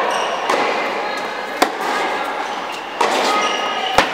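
Tennis ball being rallied in an indoor hall: four sharp racket hits and ball bounces, roughly one a second, with the loudest near the end as the near player strikes a wide ball.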